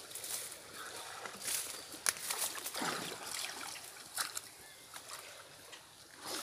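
Light sloshing and splashing of river water stirred by a swimmer, with a few scattered sharp knocks.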